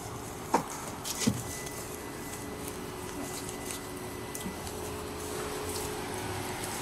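A car door unlatching with a couple of short clicks and swinging open as the driver gets out, over a steady background hum.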